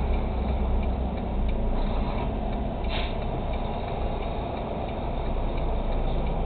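Tractor-trailer's diesel engine running at low speed, a steady low rumble heard inside the cab, with a few faint clicks.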